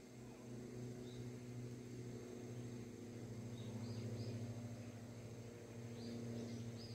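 Faint steady low hum, with a few short high chirps scattered over it, several in a cluster around the middle and again near the end.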